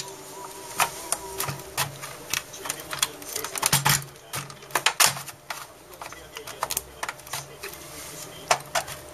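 Irregular plastic clicks, taps and rattles as parts of an opened HP inkjet printer's plastic chassis and paper-feed assembly are handled and pressed into place.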